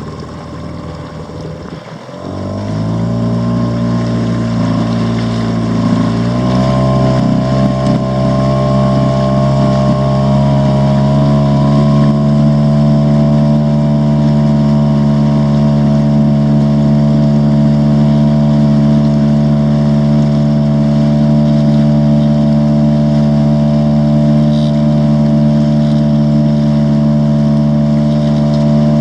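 Dinghy outboard motor, low and ticking over at first, opened up about two seconds in and again about six seconds in, then running steadily under way at speed.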